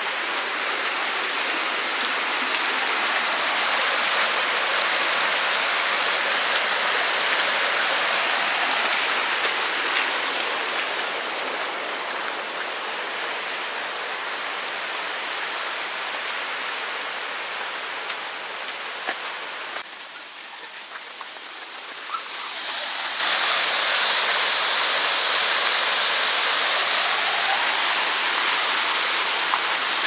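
Waterfall: a steady rush of falling water. It grows fainter about twenty seconds in, then comes back suddenly louder a few seconds later.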